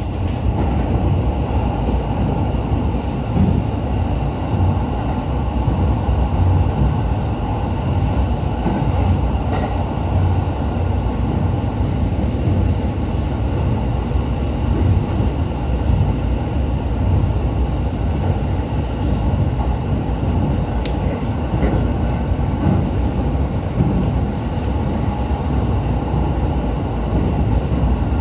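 Inside a JR East E531 series electric train running along the line: a steady low rumble of wheels on rail and car body, with faint steady tones above it. A single faint click comes about three-quarters of the way through.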